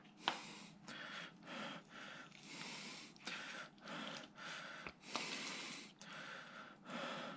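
Soft, quiet wet rustling and scraping, in short strokes about twice a second, as fingers pull apart the flesh and bone plates of a sheepshead's head, with a couple of faint clicks.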